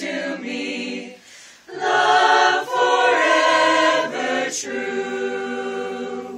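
Small mixed group of men and women singing a cappella in harmony. A short break about a second and a half in, then louder singing ending on a long held chord that stops at the end.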